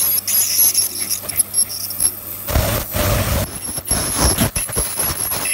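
Ultrasonic dental scaler running against a dog's tartar-coated teeth: a thin high-pitched whine with water spray and short scraping clicks of the tip on the teeth. For about a second near the middle the whine drops out under a louder rushing noise.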